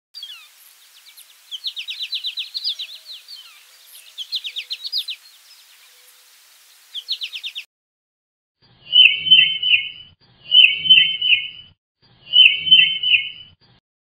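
An American goldfinch singing a rapid, twittering song that stops about seven and a half seconds in. After a short gap, a tufted titmouse whistles its 'peter-peter-peter' song three times, in three loud, evenly spaced phrases.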